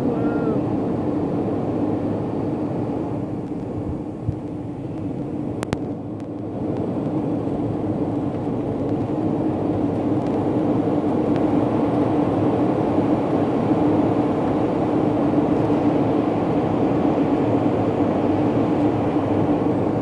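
Steady in-flight cabin drone of an airliner: engine and airflow noise heard from inside the cabin, easing slightly for a couple of seconds about five seconds in.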